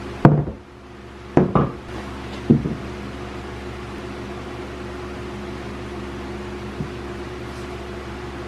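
A few sharp knocks of a wooden level and tools handled against a plywood boat hull, four in the first two and a half seconds, over a steady mechanical hum.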